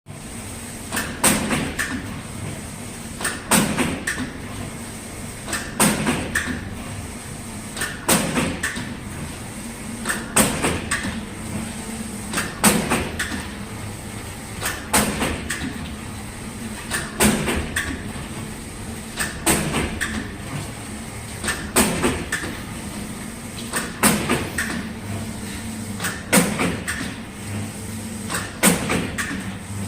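Automatic roll-to-sheet paper cutting machine running through its cycle. A cluster of sharp clacks comes about every 2.3 seconds, one per cut, over a steady motor hum and a thin high whine.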